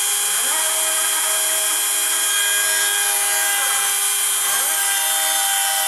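Dremel rotary tool running steadily as the spindle of a home-built CNC machine, a constant high whine. Over it the machine's axis motors whine in rising and falling glides several times as the Y axis is moved in short jogs to square a pocket corner.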